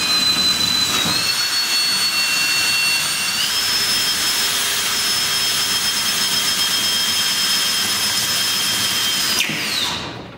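Cordless drill running steadily with a 5/16-inch bit, boring through a garage door panel: a high whine over a hiss. The whine steps up in pitch twice in the first few seconds, then winds down as the trigger is let go near the end.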